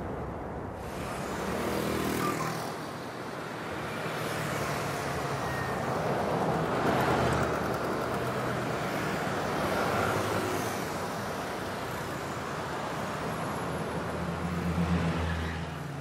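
Road traffic: cars passing one after another, rising and falling as each goes by, with the low hum of an engine growing louder near the end.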